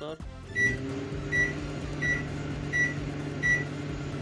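Samsung PG113UR microwave oven starting up about half a second in and running with a steady low hum, switched on by its freshly repaired start button. A short high pip repeats about every 0.7 seconds over it.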